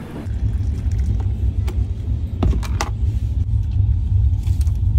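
Deep, steady rumble of a train, with a few sharp clicks about halfway through.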